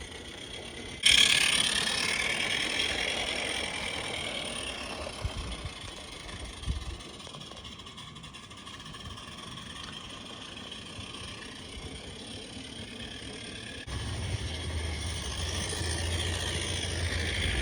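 Live steam Regner Lumberjack locomotive running along garden railway track. A hiss starts sharply about a second in and slowly fades, and a low hum joins late on.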